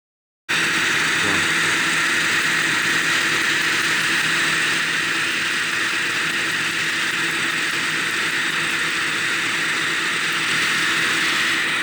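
A steady mechanical drone with a faint low hum running through it, starting about half a second in after a moment of silence.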